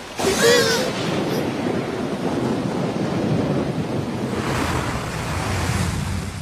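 Heavy rain pouring down in a steady rush. A short, wavering high-pitched cry sounds about half a second in.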